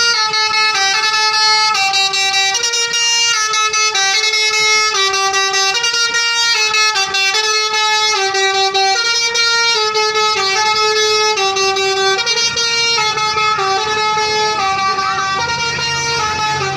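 Bus telolet basuri horn, a bank of multi-tone air horns on a bus, playing a tune as a continuous run of short stepped notes. A low hum comes in near the end.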